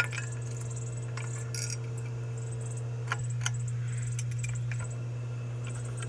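Air Cool Footprint ceiling fan running, its motor giving a steady hum, with occasional light clicks and clinks.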